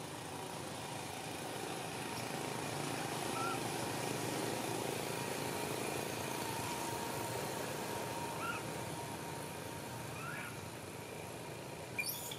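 Steady outdoor background noise with a low vehicle-like hum that swells and fades in the middle. A few brief high chirps come through it, and a sharper one near the end.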